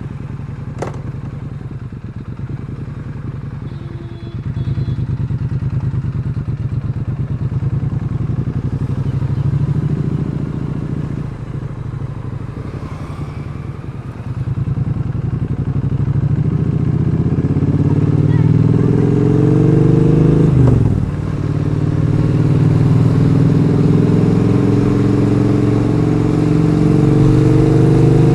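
Triumph Street Twin 900's parallel-twin engine running with its stock exhaust: idling with a few throttle blips, then revving up in long steady climbs, dropping sharply about 21 seconds in and climbing again.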